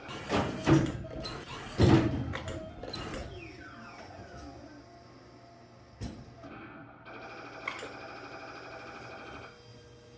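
Claw machine at work: the metal claw clatters against a clear plastic prize box, with knocks about half a second in and a louder one about two seconds in. Its motors then whir, first with a sliding pitch, then steadily for a few seconds as the claw travels.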